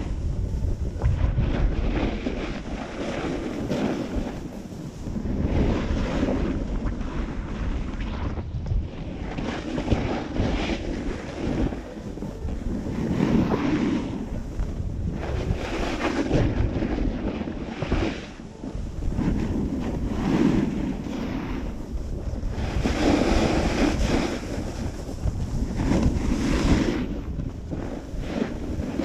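Snowboard sliding and carving on packed snow, the scrape swelling with each turn every two to three seconds, mixed with wind rushing over the microphone.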